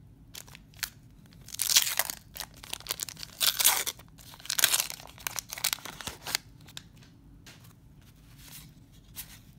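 The waxed-paper wrapper of a 1991 Donruss baseball card pack being torn open in several loud crinkling rips over a few seconds. Near the end come quieter rustles and clicks of the card stack being handled.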